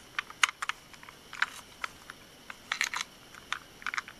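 Plastic Plarail toy train car being handled and turned over in the hands: irregular light plastic clicks and taps, a few of them in quick little clusters.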